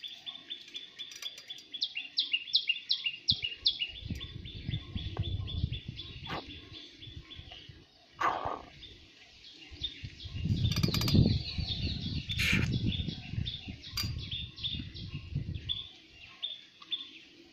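A bird chirping over and over in short, evenly spaced high notes, several a second. A low, uneven rumbling noise comes in about four seconds in and fades near the end.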